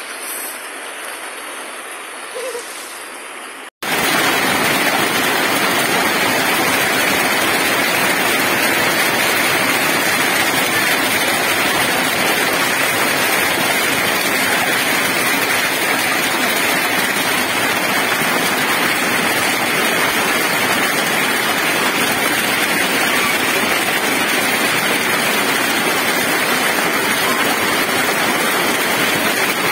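Hailstorm: hailstones and rain pelting down in a loud, dense, steady din. The first few seconds are much quieter, and the din starts abruptly about four seconds in.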